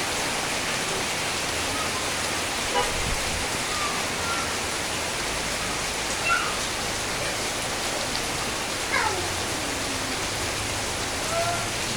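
Steady rain falling, an even hiss of water. A few short faint pitched sounds come through it, one sliding down in pitch about three quarters of the way through.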